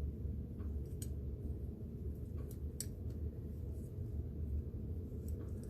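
A few faint, sharp clicks and ticks from the small parts of a diecast toy van being worked at by hand, over a steady low hum.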